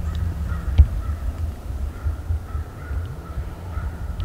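Crows cawing repeatedly, over a steady low rumble, with one sharp click about a second in.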